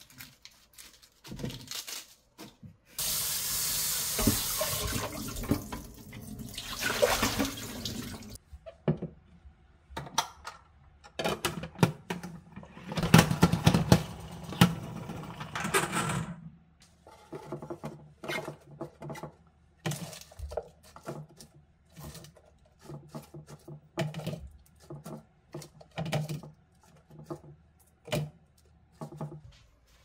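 Lettuce leaves rustle as they are torn, then tap water runs into the salad spinner basket for about five seconds. Later the OXO Salad Spinner 4.0 spins the washed lettuce with a whir for about four seconds and stops when its brake button is pressed. After that come scattered light clicks and knocks of plastic bowls and containers being handled.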